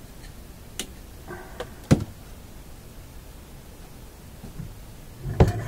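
Workbench handling noises: a few sharp clicks and knocks, the loudest about two seconds in and another just before the end, as alligator-clip test leads are handled and taken off the radio chassis.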